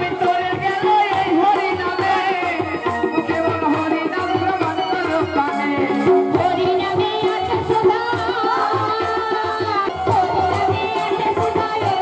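Devotional kirtan music: singing and a melody line over a fast, steady hand-drum and percussion rhythm.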